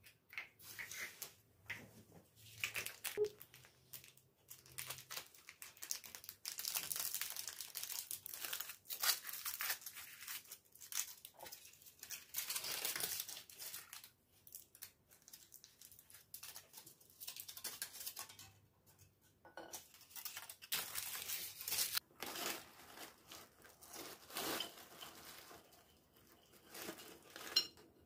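Crinkly wrapping being handled, crumpled and torn in irregular rustling bursts.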